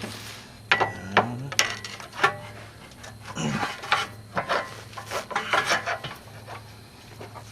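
Metal tools clinking and scraping against metal during work on a car's CV axle: a few sharp clanks, then a busier stretch of rattling and scraping in the middle, over a low steady hum.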